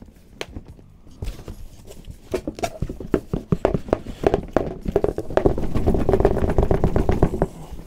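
Cardboard packaging being wrestled apart to free a tightly wedged sneaker box: rapid knocking and scraping of cardboard on cardboard, getting denser and louder about two seconds in.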